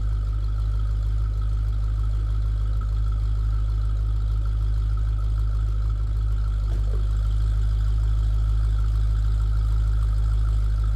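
Jeep Grand Cherokee Trackhawk's supercharged 6.2-litre Hemi V8 idling through its exhaust, a steady low rumble with a thin steady high tone above it.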